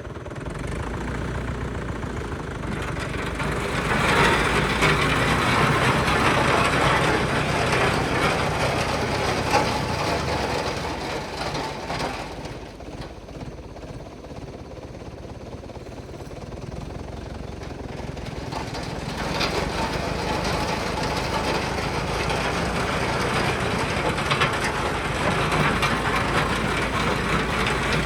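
SAME Saturno 80 tractor's air-cooled four-cylinder diesel running with a steady low throb. It grows much louder and noisier twice, from about three seconds in and again from about nineteen seconds in, with a quieter stretch between.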